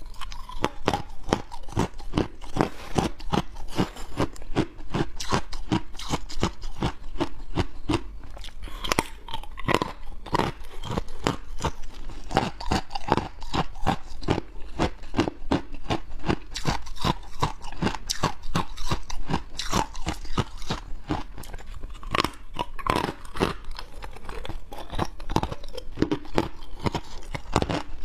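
A person biting and chewing hard ice: a dense, continuous run of sharp crunches and cracks, several a second, as the ice breaks between the teeth.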